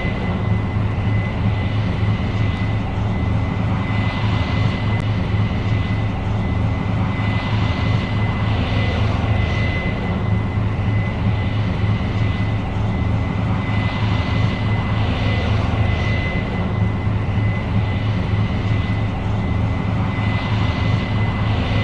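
Case IH 8230 Axial-Flow combine running steadily while harvesting soybeans: a deep engine drone with a constant high whine over it, and a hiss that swells and fades every couple of seconds.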